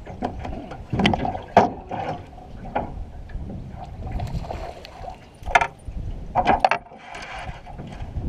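Irregular knocks and clatter in a small fishing boat, with short stretches of rushing noise between them.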